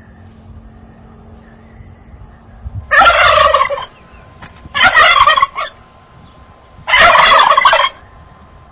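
Turkey gobbling three times, each gobble a loud rattling call of about a second, roughly two seconds apart.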